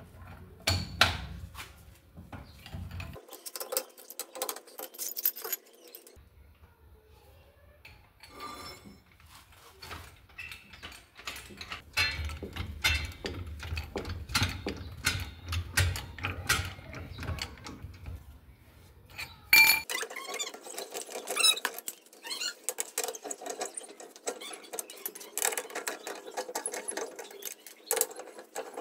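Irregular clicks, knocks and metal clatter of hand tools at work on a car's wheel and brakes, in several short stretches that start and stop abruptly.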